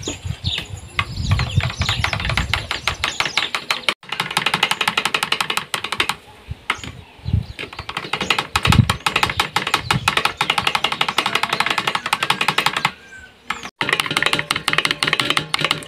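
Eggs being beaten in a bowl: a utensil clicking rapidly and evenly against the bowl, stopping briefly a few times.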